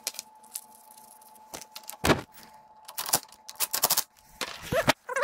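A series of sharp metal clicks and knocks, irregular and several close together around three to four seconds in, from tools and parts being handled while wheels are fitted to a power feeder.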